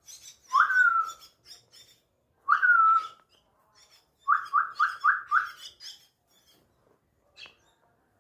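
Myna calling: two drawn-out whistled notes that rise then fall, then a quick run of five short notes about halfway through, with soft high chirps and clicks between.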